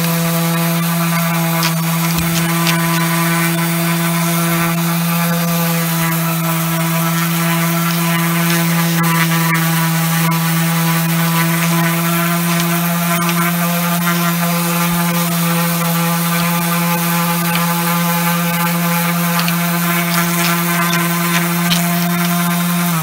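Skil electric palm sander running steadily with 120-grit sandpaper, sanding Milliput epoxy putty flush on a wooden plaque: a loud, even motor hum at one constant pitch with a whine of overtones above it.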